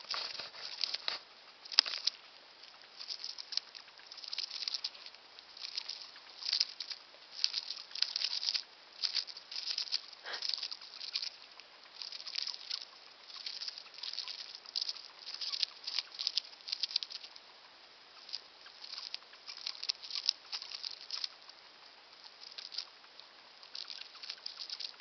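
Hamster chewing food: rapid, crisp crunching clicks in short bursts with brief pauses between them.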